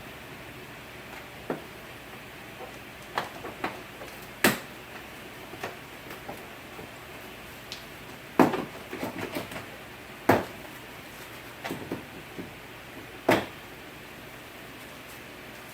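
Door trim panel on a 2003 Chevy Impala being pried off, its plastic retaining clips popping and the panel knocking against the door: about a dozen sharp clicks and knocks at irregular intervals, with a quick run of them about nine seconds in.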